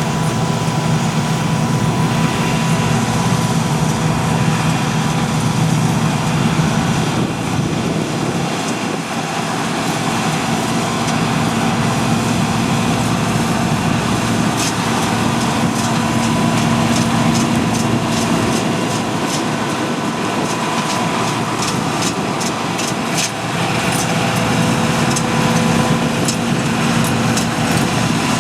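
Diesel engine of a combine harvester or tractor running steadily under load, with a run of sharp ticks through the second half.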